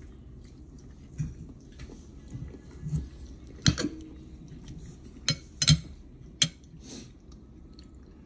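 Metal fork clinking and scraping on a ceramic dinner plate while cutting into food, a handful of sharp clinks with the loudest a little under four seconds in.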